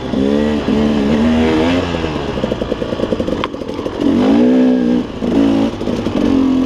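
KTM 300 two-stroke dirt bike engine being throttled on and off, its pitch climbing and dropping again and again. There is one sharp knock about three and a half seconds in.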